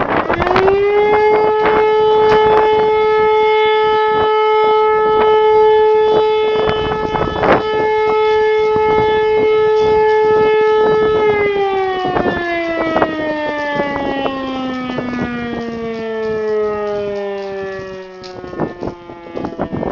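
E57 electric motor siren sounding one blast of the German fire-alarm signal. It spins up to a steady wailing tone within about a second and holds it for about eleven seconds, then winds down in a long falling glide that fades out after about seven seconds. Gusts of wind buffet the microphone throughout.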